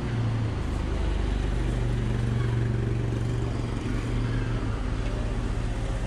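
A minivan's engine running as it drives slowly past close by: a steady low hum with a deep rumble that grows about half a second in.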